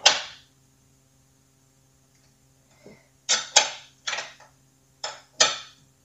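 A wrench working a bolt on a steel exercise-bike frame: a run of about five short metallic scrapes and clicks in the second half, roughly half a second to a second apart, as the bolt is tightened.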